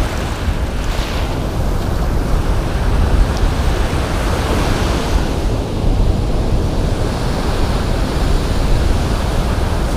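Surf washing up a sandy beach, with wind buffeting the microphone in a steady low rumble.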